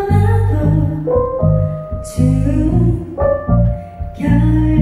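Live band music: a woman sings a melody over electric bass and drums, with heavy bass notes. Two short crashes of high hiss come about two seconds in and near the end.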